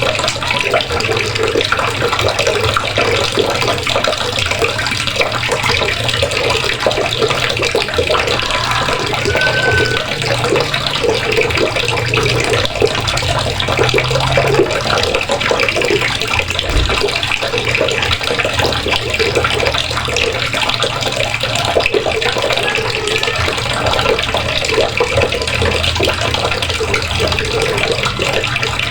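Water running steadily from a faucet, a constant splashing rush.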